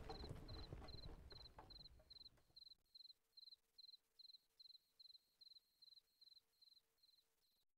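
A faint cricket chirping at a steady pace of about two and a half chirps a second, stopping shortly before the end. Clicks and knocks die away behind it in the first couple of seconds.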